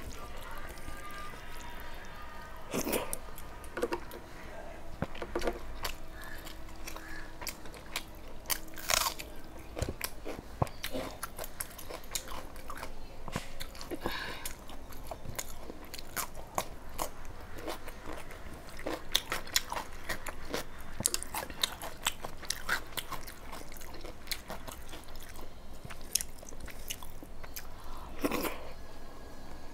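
Close-up eating sounds of a person chewing a mouthful of rice and dal eaten by hand: irregular wet smacks, clicks and small crunches throughout.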